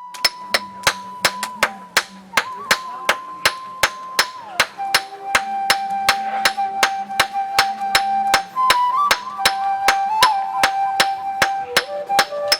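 Blacksmith's hammer striking iron on an anvil in a steady rhythm, about two and a half blows a second, while forging a weeder blade.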